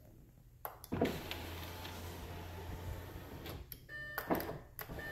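Audi B7 power window motor and newly fitted cable window regulator running the door glass down. It starts with a click and a thump about a second in, then runs with a steady hum. A short pause and another thump come around four seconds in, and the motor starts again as the glass heads back up.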